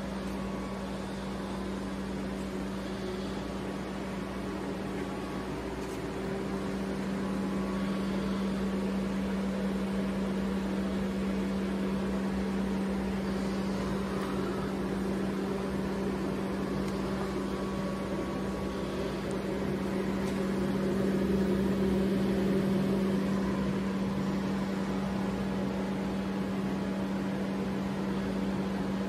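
Steady electric machinery hum with one constant low tone, a little louder from about six seconds in and again around twenty-one seconds.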